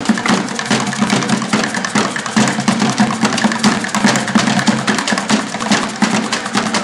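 Batucada percussion ensemble playing a fast, dense drum rhythm, with a steady low hum underneath.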